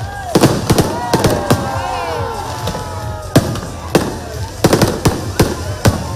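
Fireworks display: aerial shells bursting in an irregular string of sharp bangs and cracks, bunched at the start and again in the second half.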